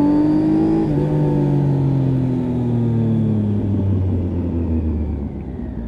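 Triumph Tiger 800 XRt's three-cylinder engine on the move, its pitch rising briefly under throttle and then falling steadily for several seconds as the bike slows.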